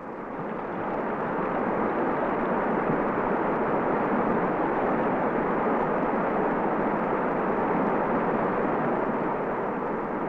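Whitewater rapids of the Franklin River rushing in a steady wash of noise that swells over the first couple of seconds and eases a little near the end.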